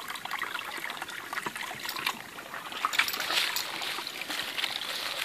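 Shallow woodland brook trickling over rocks, with scattered small splashes and clicks from a dog wading in the water.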